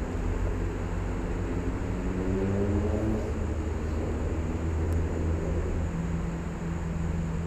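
A motor vehicle's engine, its pitch rising about two to three seconds in and then settling into a steady low hum, over a constant low rumble.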